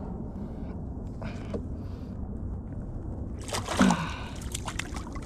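Sea water sloshing against a kayak's hull, with a louder splashy clatter a little past halfway through that comes with a brief voice sound, and a few small clicks after it.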